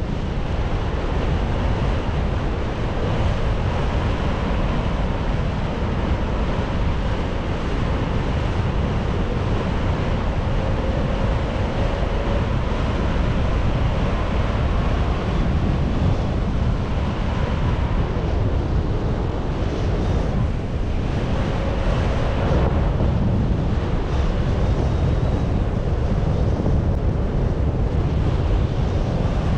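Wind buffeting the microphone: a steady, loud low rush of air noise, with a faint, slightly wavering tone underneath.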